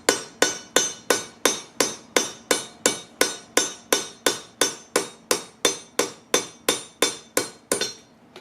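Hammer blows ringing on a railroad-track anvil in a steady, even rhythm of nearly three strikes a second, stopping near the end.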